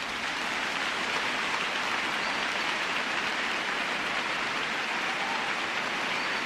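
A steady, even hiss of noise that fades in at the start and then holds level.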